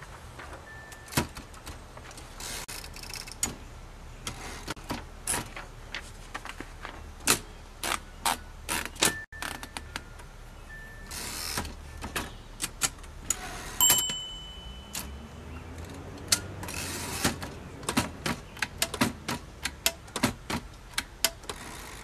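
1958 Royal FP manual typewriter being typed at moderate speed: irregular clacks of the typebars striking the platen, with a short ring of the margin bell about two-thirds of the way through.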